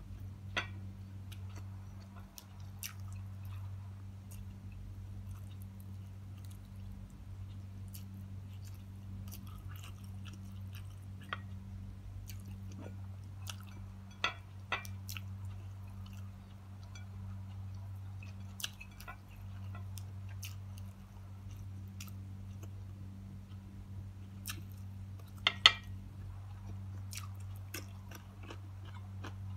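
A person chewing a mouthful of rice and fried tilapia with scattered mouth clicks, the loudest a few seconds before the end, over a steady low hum.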